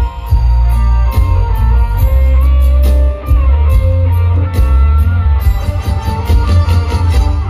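Live band playing an instrumental passage of an Isan mor lam-style song: a plucked-string lead melody over heavy pulsing bass and drums with a steady cymbal beat.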